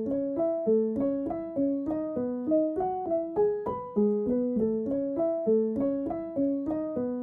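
Background music: a piano-like keyboard playing a light, even run of single notes, about three or four a second.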